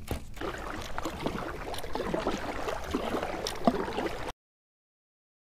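Water gurgling and lapping around a plastic kayak, with small knocks and clicks; the sound cuts off to dead silence about four seconds in.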